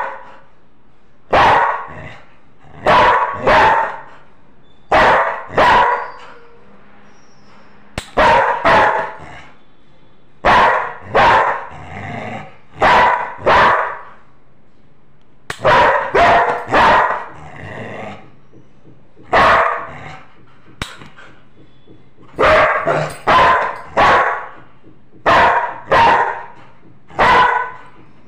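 Yellow Labrador retriever barking repeatedly in short, loud barks. The barks come mostly in twos and threes every couple of seconds, with a couple of softer sounds between them.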